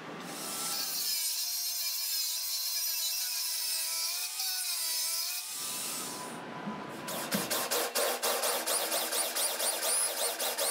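Electric drill with a hole saw cutting into the steel shell of a tank. The first half is a high, wavering whine; from about two-thirds of the way in, the saw teeth chatter at roughly five clicks a second as they bite into the steel, with squealing above the chatter.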